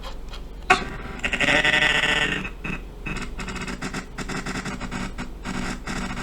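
A drawn-out, bleat-like voice sound about a second in, lasting over a second, with many short clicks around it.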